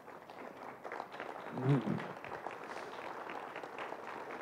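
Audience applauding, a steady patter of many hands clapping, with a short call from one voice partway through.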